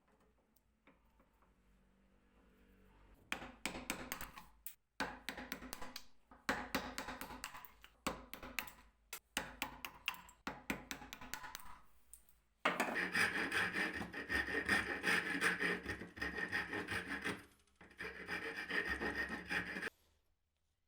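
A hand tool rubbing back and forth on wood, such as sanding or scraping. It starts about three seconds in as quick repeated strokes broken by short pauses, turns into denser, steadier rubbing in the second half, and stops shortly before the end.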